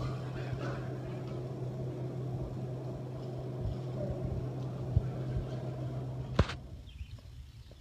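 Steady low hum over a rushing background noise, with a few small knocks and one sharp click about six and a half seconds in, after which the sound drops away.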